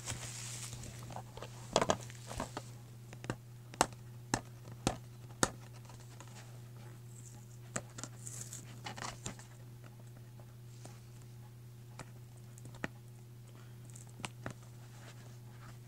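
Scattered sharp clicks and taps of fingers handling a plastic DVD case, with a few brief crinkles of loose shrink wrap, over a steady low hum.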